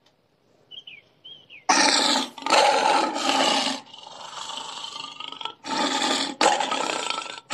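Big cat roaring sound effects: after a near-silent first second and two faint short high chirps, a series of loud, harsh roars begins about two seconds in, with a quieter rumbling stretch in the middle.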